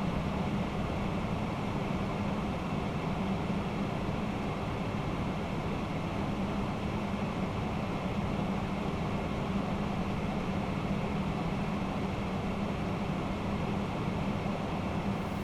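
Steady flight-deck noise of a Boeing 767-300ER in flight: an even rush of airflow and engine noise with a low hum.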